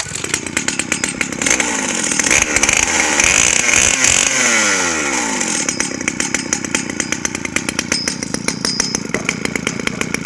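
1970s Pioneer 1073 two-stroke chainsaw, running without its chain, catching right at the start and revving up high, then dropping back about five seconds in to a steady idle. It is the revived saw running after its points were set and stale gas cleaned out.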